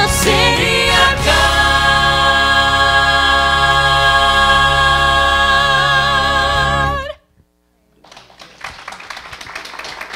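Three voices in gospel harmony hold the final chord of a song, which cuts off about seven seconds in. After a brief pause, scattered applause from the congregation follows.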